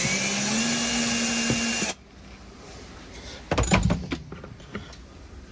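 Cordless drill-driver running for about two seconds to back out a screw from the plastic door-sill trim, its motor pitch rising slightly before it stops abruptly. A few knocks and rattles follow about a second and a half later.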